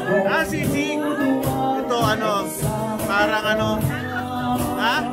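Live band music with a singer: a voice gliding over guitar, bass and drums.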